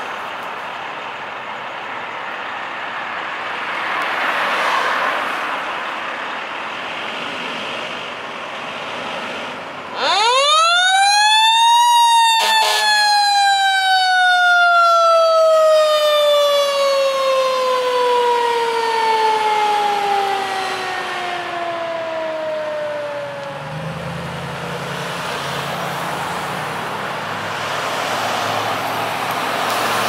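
Fire truck's Federal Q mechanical siren winds up quickly to a high wail over about two seconds, then coasts slowly down in pitch for about ten seconds as it spins down. The truck's diesel engine and road noise run before and after it.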